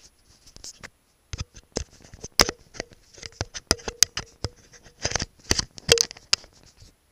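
Close handling noise from a body-worn action camera being fitted and adjusted: a quick, irregular run of sharp clicks and knocks with rustling between them, loudest about two and a half seconds in and again around five to six seconds.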